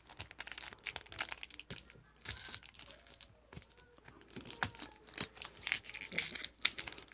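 Crinkling and tearing of a foil trading-card pack wrapper being opened by hand, with a run of short crackles.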